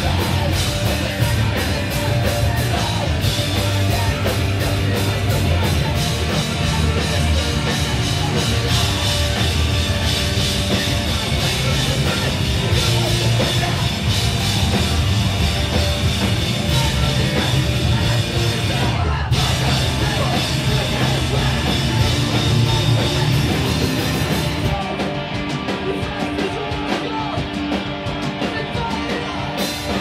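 Hardcore punk band playing live at full tilt: distorted electric guitar, bass and fast, heavy drumming with crashing cymbals. About five seconds before the end the cymbal crash drops away and the sound thins, then the full band comes back in.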